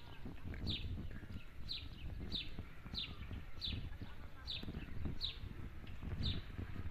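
Wind buffeting a phone microphone as it swings back and forth on a playground swing, with a high, falling chirp repeated about every two-thirds of a second.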